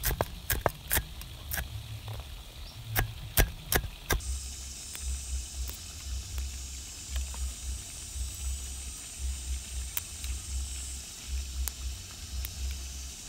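A cleaver chopping chilies on a wooden cutting board: an irregular series of sharp knocks for about the first four seconds. After that the chopping stops, leaving a steady high hiss and a low rumble while leaves are stripped from their stems.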